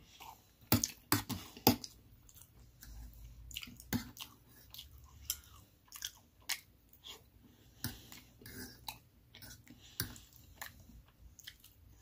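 Close-miked chewing of homemade meatloaf: wet mouth sounds and bites, with several sharp clicks, the loudest in the first two seconds.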